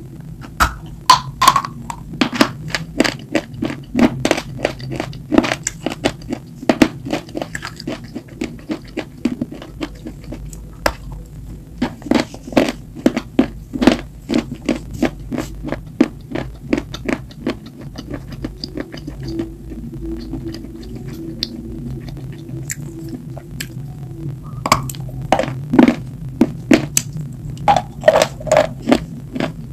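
Close-miked biting and chewing of a hard, brittle block: many sharp crunches, several a second, thinning out around the middle and picking up again near the end.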